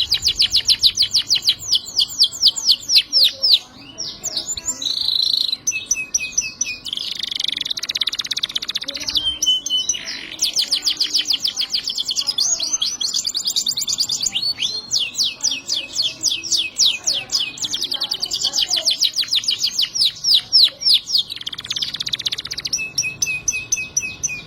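Domestic canary singing a long song of fast, high trills, with short breaks about four and ten seconds in.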